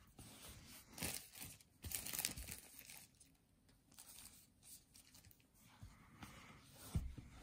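Clear plastic shrink wrap being torn off a cardboard box and crinkled in the hand, loudest in two crackly spells about one and two seconds in, then fainter rustling. A short soft thump near the end.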